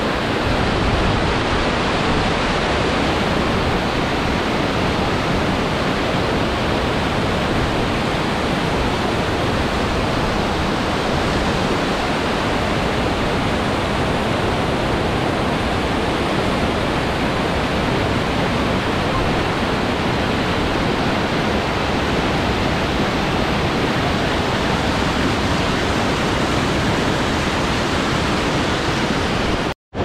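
Waterfall pouring over a rock ledge into a rocky mountain stream: a loud, steady rush of falling water that cuts off abruptly just before the end.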